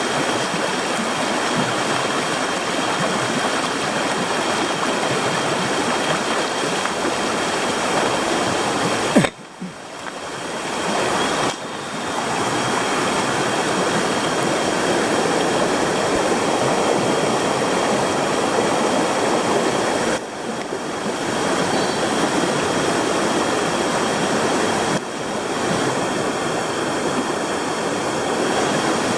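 Steady rushing water of a mountain stream, with a few abrupt breaks where the sound cuts off and resumes.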